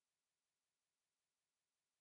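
Digital silence: no sound at all.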